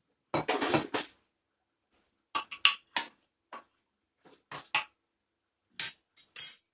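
Metal ladle knocking and scraping inside an aluminium pressure cooker while chopped bottle gourd and potato are stirred: a longer clatter near the start, then a string of short, separate clanks.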